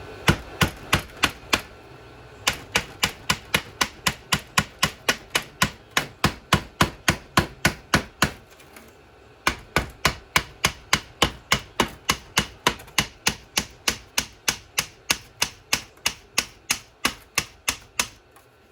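Hammer blows struck in quick, even succession, about three a second, in three runs with short pauses between them, on the seized carrier of a Polaris Sawtooth 200 ATV to break the stuck parts apart. The owner assumes heat from running low on gear oil stuck them together.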